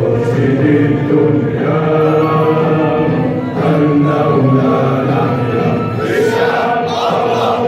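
Choral music: many voices singing together over instrumental accompaniment, steady and continuous.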